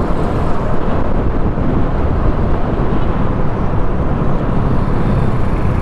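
Steady wind rush and engine noise from a Honda XRM 125 single-cylinder motorcycle being ridden, picked up by a lavalier mic mounted on the rider's helmet.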